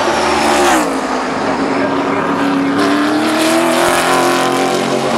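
A NASCAR Cup stock car's V8 engine as the car passes close by. The engine pitch drops sharply about a second in, then rises steadily as it accelerates.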